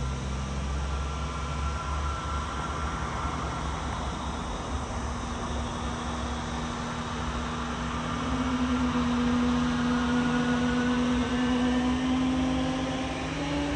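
Distant Airbus A320neo jet engines spooling up, a whine that rises slowly in pitch and gets louder about eight seconds in, as the airliner powers up for takeoff.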